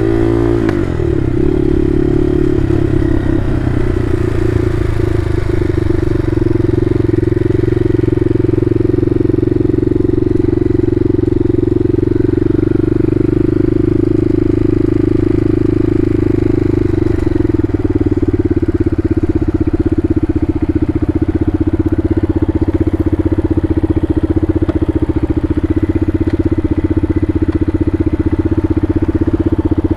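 Bashan Motomax 250 supermoto engine under way: the revs drop about a second in, then it holds a steady engine note at constant speed.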